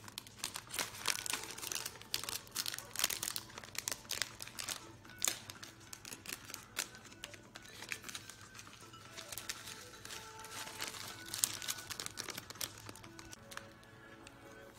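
Plastic snack packaging crinkling in irregular crackles as a pumpkin-seed pouch and other packets are handled, with faint music behind.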